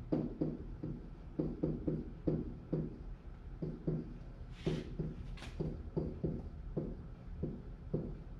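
A pen writing on an interactive whiteboard: a quick series of light taps against the board, about three a second, with two short scratchy swishes near the middle.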